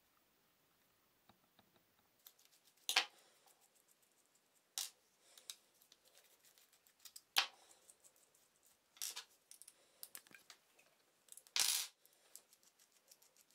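Small steel parts handled on a wooden table: a hex key and set screws turning and clinking in a steel cutter holder, with about five sharper clicks and taps among faint ticking.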